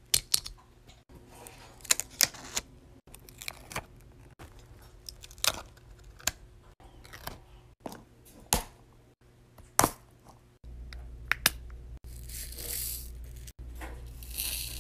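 Scattered sharp plastic clicks and taps from diamond painting: resin drills and small plastic drill storage boxes being handled. A steady low hum comes in about two-thirds of the way through.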